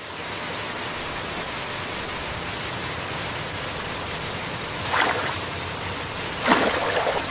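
Waterfall: a steady rush of falling water, swelling briefly twice in the last few seconds.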